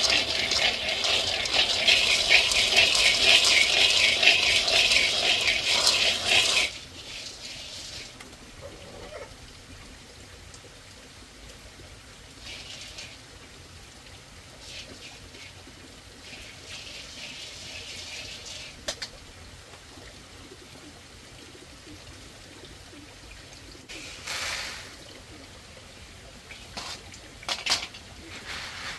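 Water running or pouring, loud and steady, cut off suddenly about six and a half seconds in; after that a faint background with a few brief noises.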